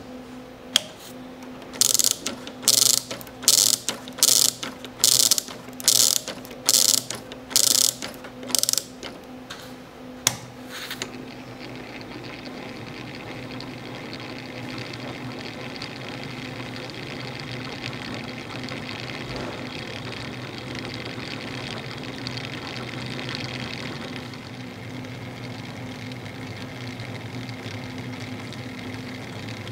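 Wooden kinetic art model's rubber-band motor being wound by its key: about a dozen loud ratchet clicks, a little under a second apart. About eleven seconds in the clicks stop, and the laser-cut birch gears run with a steady whir as the wound rubber band drives them.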